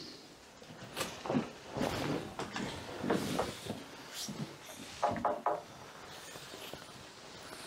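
Knocks and thuds of people moving about inside an old timber boat: footsteps on the boards and doors or fittings being handled, with a short run of creaks about five seconds in.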